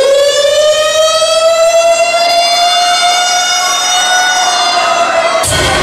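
Fire truck siren sound effect in a dance routine's soundtrack: one long wail that rises and then holds steady. It cuts off just before the end as fast electronic dance music with a beat comes in.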